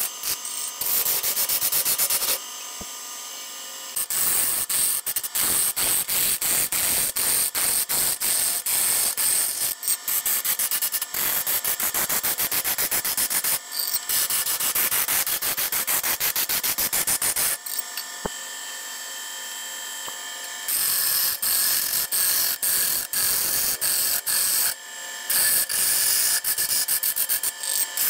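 A large hardwood cylinder spinning on a wood lathe while a hand tool is held against it, cutting or scraping the surface: a loud, rapid rattling scrape. Twice it drops for a few seconds to a quieter steady running sound, about two seconds in and again near eighteen seconds.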